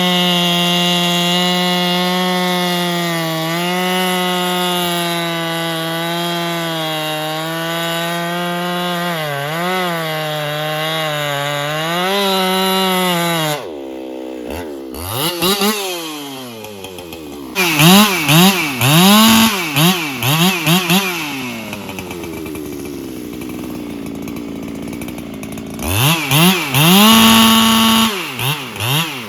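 Solo 681 two-stroke chainsaw held at full throttle in a cut, its pitch sagging a little now and then under load. About halfway through it drops to idle and is then revved in repeated quick throttle blips, with a short held rev near the end.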